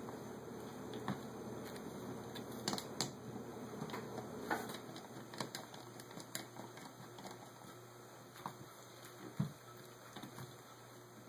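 Nut driver turning the float bowl bolts on a Holley 600 carburetor: scattered light metallic clicks and ticks of the tool on the bolt heads and of the carburetor being handled, over a faint steady hum.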